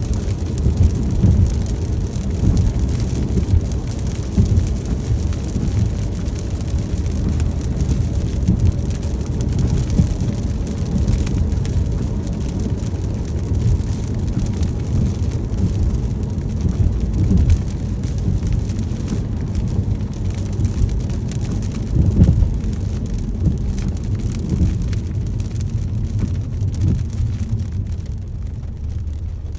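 Rain falling on a moving car over a steady low road rumble; the rain thins out near the end.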